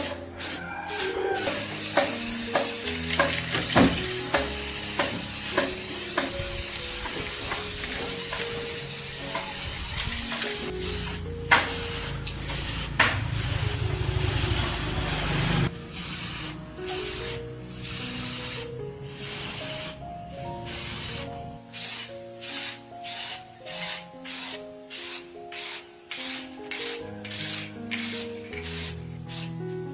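A steady hiss of workshop work, then short hissing strokes about once a second, over soft background music.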